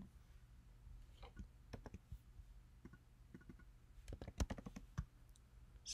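Faint computer keyboard keystrokes and clicks, scattered, with a quick run of several keys about four seconds in.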